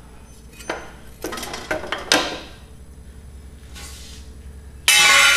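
Metal hand tools and parts being handled on a garden tractor's steel frame: a few knocks and clinks in the first two seconds, then a loud, ringing metallic clatter near the end.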